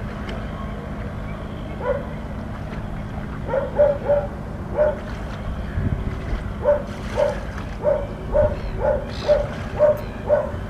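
A string of short, pitched animal calls, about two a second, starting about two seconds in, over a steady low hum.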